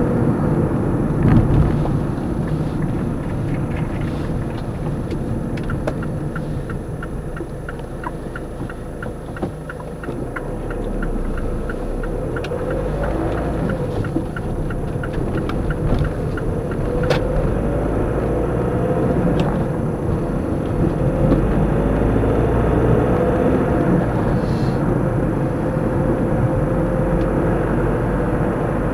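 Car engine and road noise heard inside the cabin. The turn indicator ticks about twice a second for some ten seconds, then the engine note rises as the car pulls away.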